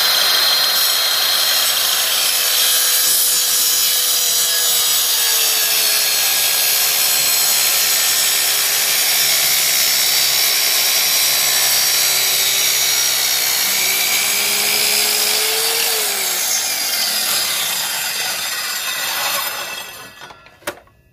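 Scheppach mitre saw running with a high whine as its blade cuts down through a vinyl Funko Pop figure; the pitch sags a little under the load of the cut, rises again, then falls as the motor is switched off and the blade winds down to a stop. A short click near the end.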